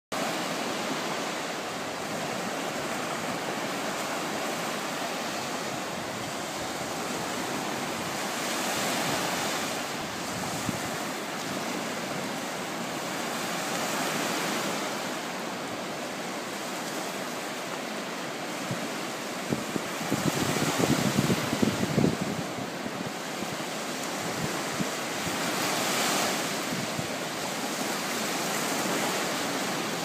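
Small Baltic Sea waves breaking on a sandy beach, a steady rush of surf that swells every few seconds as each wave comes in. About two-thirds of the way through, wind buffets the microphone with a few seconds of low rumbling.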